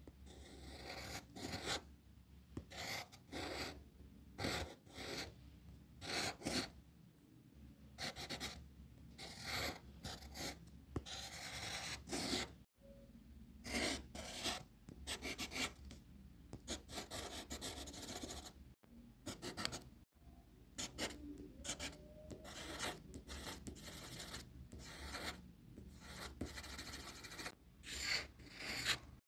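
Graphite pencil scratching on paper in many short, irregular strokes as lines are drawn, with brief pauses between strokes.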